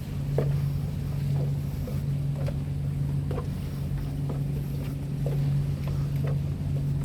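Steady low engine-like drone, with light irregular knocks about once or twice a second.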